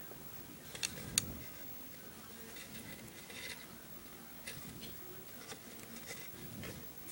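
Faint handling noise of fingers knotting bracelet strings on a clipboard: soft rustling and light tapping, with two sharp clicks about a second in.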